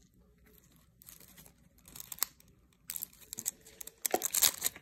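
Holographic nail transfer foil crinkling under a gloved thumb as it is pressed onto a nail tip, then peeled off, with the loudest run of crackles near the end as the sheet comes away.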